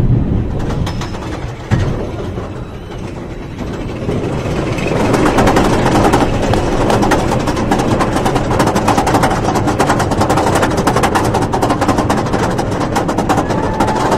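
Roller coaster train climbing the chain lift hill of Storm Chaser, a Rocky Mountain Construction steel-on-wood hybrid coaster. The lift chain runs steadily, and from about five seconds in the anti-rollback dogs click in a fast, even run.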